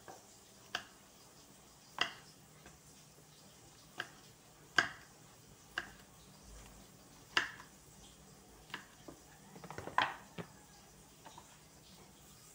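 Kitchen knife cutting the ends off green beans on a wooden cutting board: sharp knocks of the blade against the board at an uneven pace, roughly one a second, with a quick run of taps about three quarters through.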